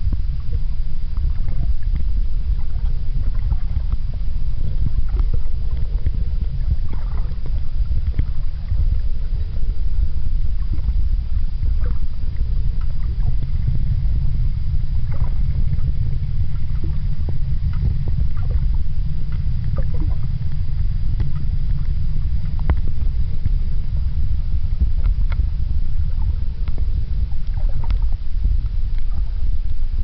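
Steady low rumble of water noise on a camera filming underwater, with scattered faint clicks and ticks over it.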